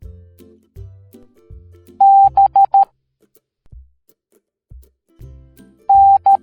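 Morse code sent as a steady high beep tone. About two seconds in, one long beep and three short ones (dash-dot-dot-dot, the letter B); near the end, a long beep and a short beep, the start of the next letter. Children's background music with a bass line plays quietly underneath.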